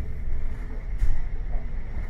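Low, steady rumble of a bus engine and running gear heard from inside the bus, with a faint click about a second in.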